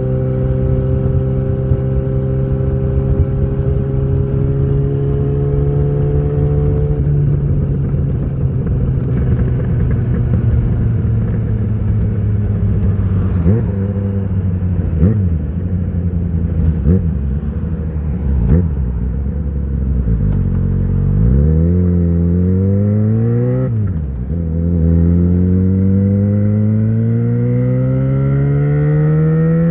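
Yamaha XJ6 inline-four with an Ixil full exhaust and dB killer fitted, riding along. It holds a steady, slowly rising note, the throttle eases off, and a few short revs follow. Then it accelerates hard, its pitch climbing, with an upshift about two-thirds in and another at the very end.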